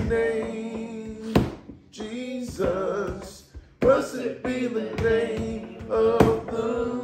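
Voices singing a worship song in long held notes, phrase after phrase, with a few sharp knocks between the phrases.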